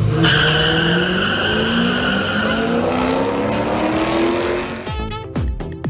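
Two drag cars launching off the line and accelerating down the strip, their engines revving with a long, steadily rising pitch for about four seconds. Near the end, sharp hits and quick falling swoops of music take over.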